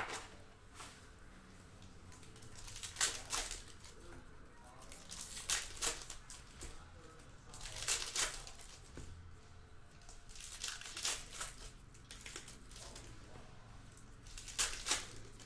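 Plastic wrapping on basketball trading-card hobby boxes and packs crinkling and tearing as it is opened, in short separate bursts every two to three seconds.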